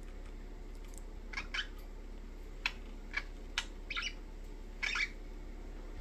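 Budgerigars giving a run of short chirps, starting about a second and a half in.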